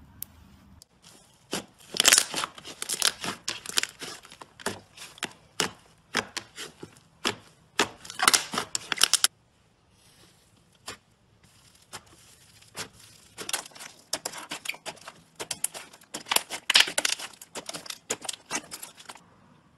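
Slime being squeezed and pressed by hand, giving dense crisp clicking and crackling pops. The pops come in two stretches with a short quiet gap near the middle.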